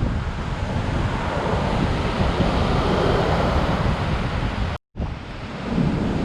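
High surf breaking and rushing up a sandy beach, with strong wind buffeting the microphone in a heavy rumble. A wave's rush swells about a second in and eases off after about four seconds, and the recording cuts out for a split second shortly after.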